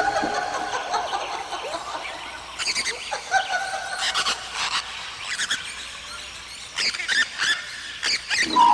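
Macaws squawking and screeching, a string of short, harsh calls one after another.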